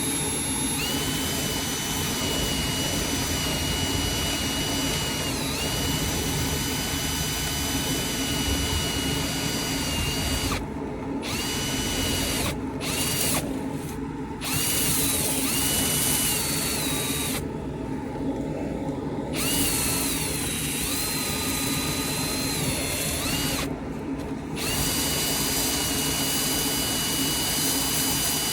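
Power drill spinning a rotary brush whip inside a dryer vent duct to loosen built-up lint. The motor whines steadily and its pitch dips now and then under load. The scratchy hiss of the brush cuts out briefly several times.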